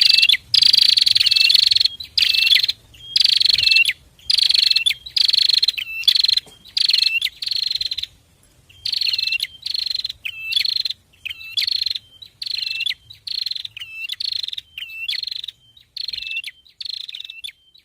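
A pair of prinias singing. They give a rapid series of harsh, buzzy chirps, about two a second, alternating with short clear hooked notes, and grow fainter toward the end.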